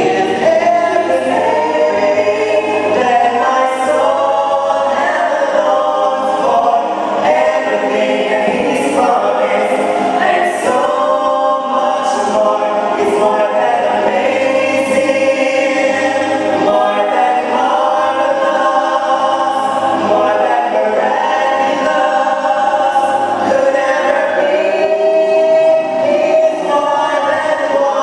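Choir singing a gospel song, many voices together with no clear instrumental accompaniment.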